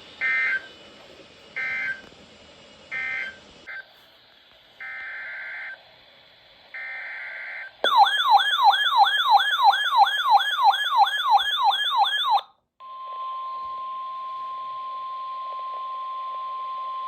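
Emergency Alert System tones. First come three short screeching data bursts and then two longer ones. A rapidly warbling, siren-like alert tone follows for about four and a half seconds, and then a steady single tone of about 1 kHz, the NOAA Weather Radio warning alarm tone.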